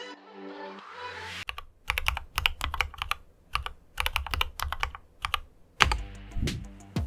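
A rising swish, then typing in quick bursts of clicks on the Monstargear MK308 optical-switch keyboard, with some deeper thuds about six seconds in.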